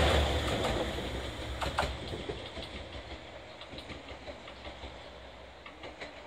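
Three-car JR Shikoku 2000-series diesel railcar set running slowly past and away, its engine and wheel noise fading steadily, with a few wheel clicks over rail joints about two seconds in.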